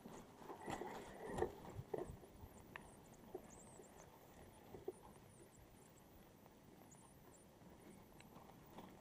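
Near silence: a few faint clicks and knocks in the first two seconds, then a low, steady hiss with faint high chirps.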